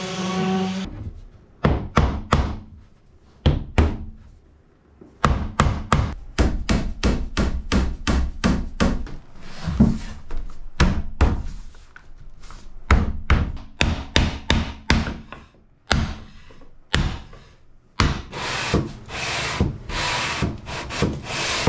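An orbital sander's hum stops about a second in. Then comes a long run of sharp wooden knocks and taps as pieces of wood are handled and fitted into place, with rubbing and scraping of wood on wood toward the end.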